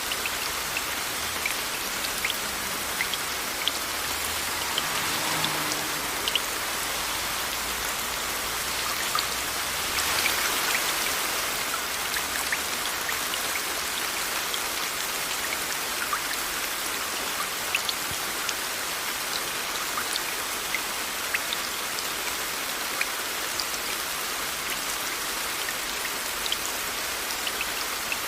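Steady rain mixed with white noise: an even hiss with scattered drops ticking sharply through it, swelling slightly about ten seconds in.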